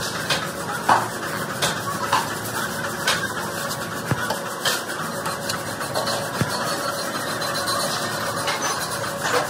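Workshop machinery noise: a steady mechanical hum with a faint steady tone, broken by irregular sharp knocks, the loudest about a second in.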